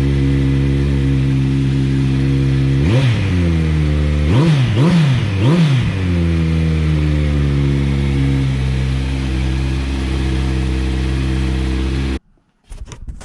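2021 Kawasaki Z900's inline-four engine idling on a cold start through its stock headers and Akrapovič slip-on exhaust, blipped four times with the throttle between about three and six seconds in. The engine sound cuts off abruptly near the end.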